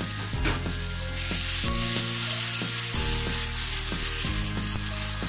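Sliced onions and garlic paste sizzling in hot oil in a pan and stirred with a wooden spatula. The sizzle swells louder about a second in, over soft background music.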